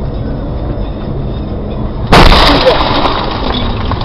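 Steady road and engine noise inside a moving car, then a sudden loud crash about two seconds in that fades over about a second: the impact of a car collision.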